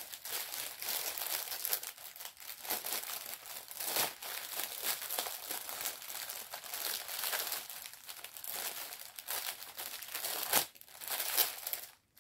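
Plastic kit packaging crinkling and rustling as it is handled, with small irregular clicks. It stops briefly near the end.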